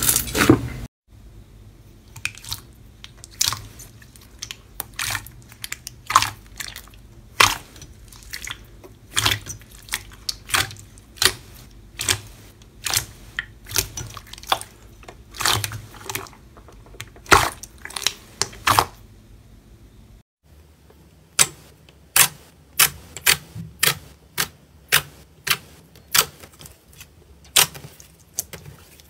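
Hands squeezing and kneading slime, making a run of separate sharp wet clicks and pops as trapped air bursts out. First thick metallic silver slime worked in a steel bowl, then glossy blue glitter slime pressed and folded, its pops coming faster in the last third.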